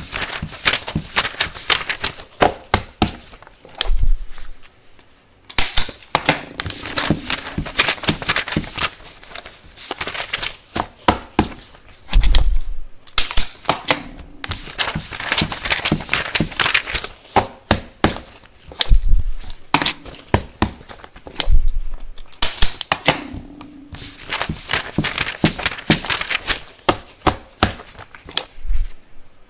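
A stapler stapling paper over and over: quick sharp clicks and crunches with paper rustling between presses, and several dull thumps.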